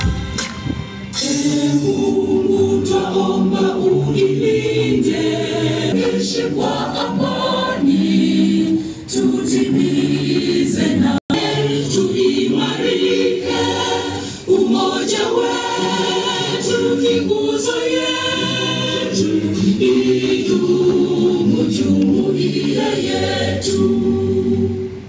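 A crowd singing an anthem together in unison, choir-like, with a brief break about eleven seconds in.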